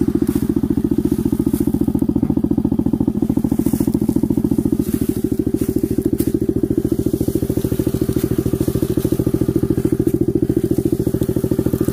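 Engine of a 125 cc geared ATV running steadily, an even pulsing note that holds the same speed with no revving.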